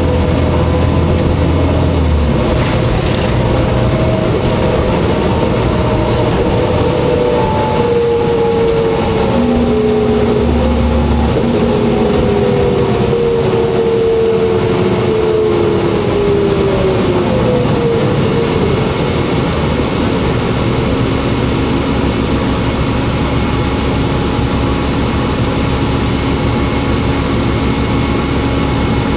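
Cabin sound of a 2003 New Flyer D40LF transit bus under way, with its Cummins ISL diesel and Voith D864.3E automatic transmission. A whine slowly falls in pitch over about fifteen seconds, then gives way to a steadier hum for the last ten seconds.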